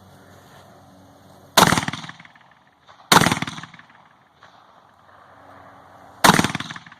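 An AR-15 rifle fired three times, at irregular intervals of about one and a half and three seconds. Each shot is a sharp crack with a short echoing tail.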